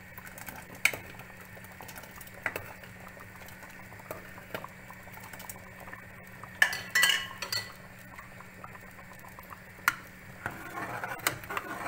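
A spoon stirring harira in a large cooking pot, with occasional sharp clinks against the pot and a flurry of them a little past halfway. A steady low hum runs underneath.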